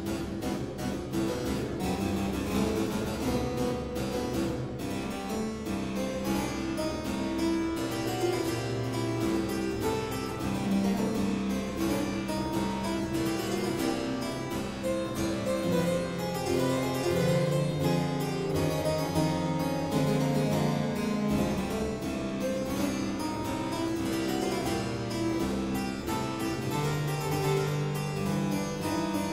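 Two-manual harpsichord played solo in a boogie-woogie style: a steady, dense stream of plucked notes over a moving bass line.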